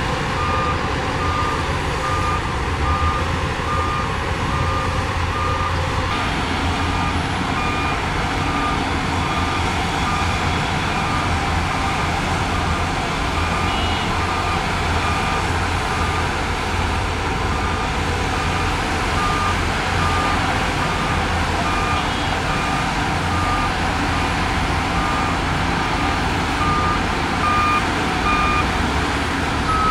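Reversing alarm on heavy earthmoving equipment beeping steadily, a little faster than once a second, over a diesel engine running. The machine is backing up.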